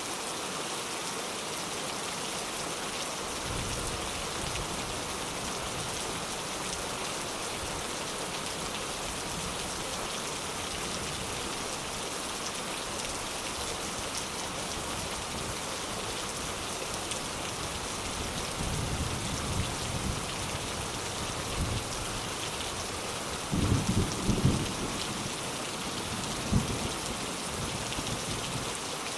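Steady heavy rain with rolling thunder: low rumbles build from a few seconds in, swelling about two-thirds of the way through, with the loudest claps near the end.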